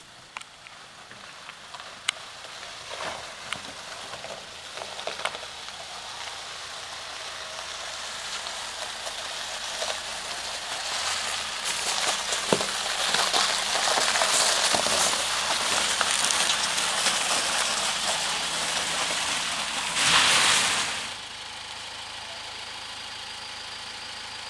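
Toyota RAV4's Kumho KC15 winter tyres crunching and crackling over icy slush on a steep ramp, growing louder as the SUV approaches and loudest as it passes close, about twenty seconds in, then dropping suddenly to a steady low hiss.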